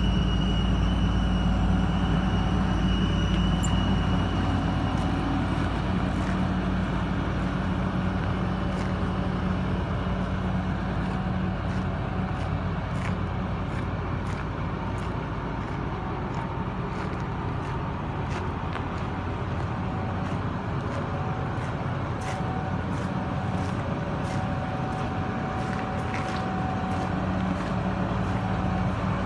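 Hitachi ZX350H-3 excavator's diesel engine idling steadily, with a high steady tone in the first few seconds. It is heard first inside the cab, then from outside the machine, a little quieter.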